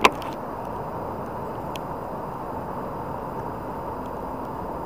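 DJI FPV drone's motors and propellers running with a steady hum and hiss, after one sharp click right at the start.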